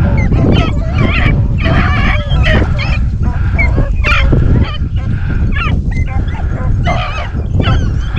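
A pack of rabbit hounds baying on a running rabbit's trail, several voices overlapping in repeated bawls and yelps. A steady low rumble runs underneath.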